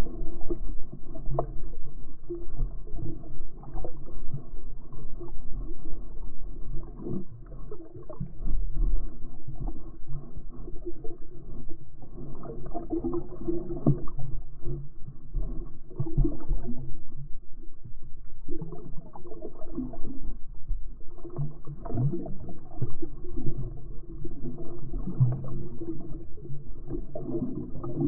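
Muffled underwater sound from a GoPro action camera: water sloshing and gurgling against the camera, with a low rumble and nothing in the high range.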